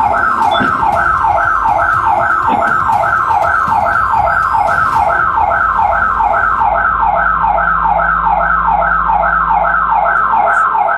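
Home security alarm siren going off, set off by an attempted break-in at the front door: a loud, fast falling whoop repeated about three times a second. It cuts off suddenly near the end.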